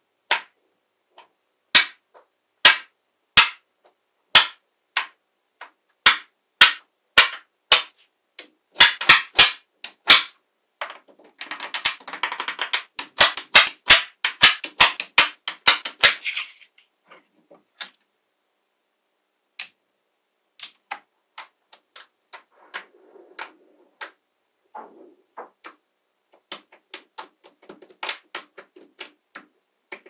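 Small metal magnetic balls snapping together in sharp, single clicks as rows of them are set onto a block, with a dense run of rattling clicks for several seconds near the middle.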